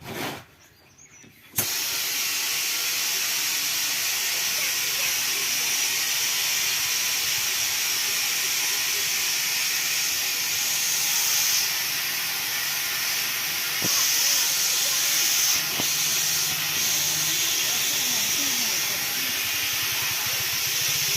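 Compressed air hissing steadily, starting suddenly about a second and a half in after a brief short burst.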